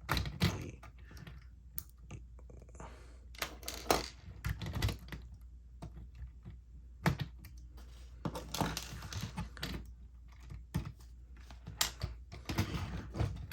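Lego bricks being pulled apart and handled: irregular plastic clicks and clatter.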